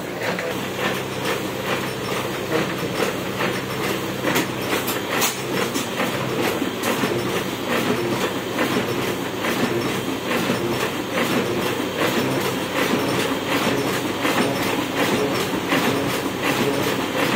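Hamada 700 sheet-fed offset printing press running and printing, its cylinders, rollers and sheet feed making a steady, fast, even clatter over a constant mechanical hum.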